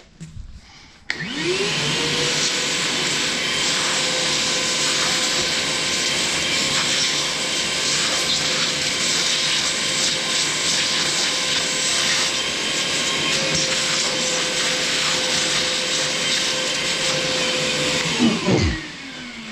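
Wet/dry shop vacuum switched on about a second in, its motor whining up to a steady pitch over the rush of air through the hose as it sucks aluminium chips off freshly flycut pistons. It is switched off near the end, and the motor winds down with a falling whine.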